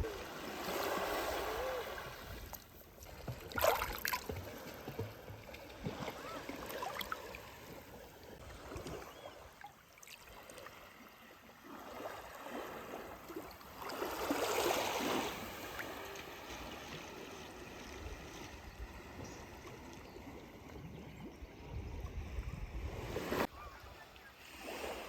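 Small waves washing onto the beach, the wash swelling and fading a few times, with a couple of brief knocks.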